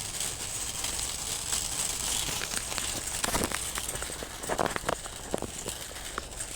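Steady ventilation hiss of a large store interior, with scattered light clicks and knocks and a couple of brief faint squeaks.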